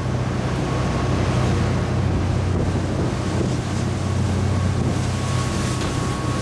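High-speed passenger craft running at sea: a steady low engine drone with rushing water and wind noise, and a faint steady whine above it.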